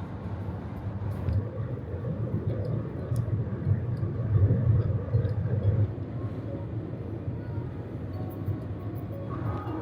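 Steady low road rumble inside a moving camper van, swelling a little about four to six seconds in.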